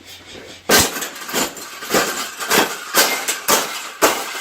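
Wire bird cage rattling and clanking in a series of sharp strokes, about two a second, as it is forced and bent into a fold. The strokes start about a second in.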